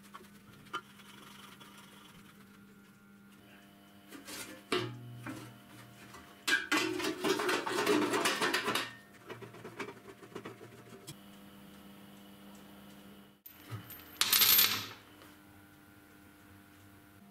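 Sheet-metal box scraping and rattling against a steel frame as it is pushed into place, for about two seconds, among scattered metal clinks. A few seconds later comes a short loud clatter of small steel brackets on a steel workbench. A steady low hum lies under it all.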